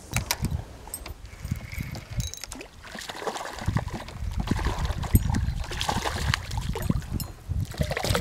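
Bass splashing and thrashing at the water's surface as it strikes and fights a swimbait, over heavy low rumbling noise on the microphone that comes in suddenly at the start and again about three seconds in.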